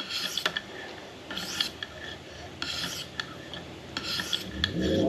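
Sharpening stone of a KME guided knife sharpener rasping across the blade's edge in four short upstrokes, about one every second and a half: the 1500-grit stone chasing off the last of the burr.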